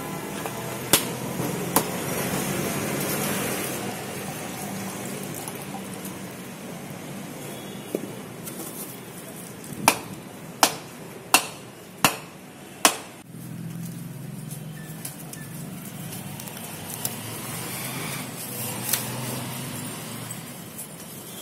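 A whole coconut struck hard against a stone rod to crack its shell: sharp knocks, with a run of five about three-quarters of a second apart midway through, over a low steady hum.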